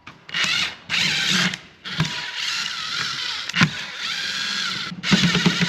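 Handheld power driver running in two short bursts and then a longer run, with a sharp click partway through.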